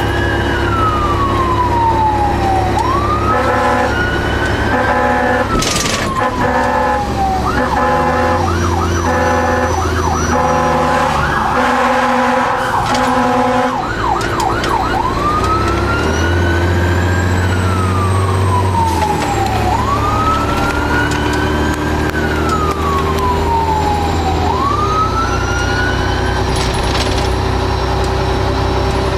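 Fire engine siren heard from inside the cab, repeatedly winding up quickly and falling away slowly. For the first half it is joined by repeated short blasts of the air horn, over the steady running of the truck's engine.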